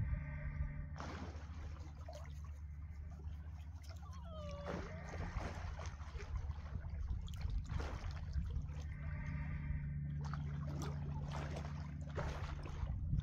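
Water splashing and swishing in repeated, uneven strokes over a steady low hum. A brief pitched call sounds about four and a half seconds in.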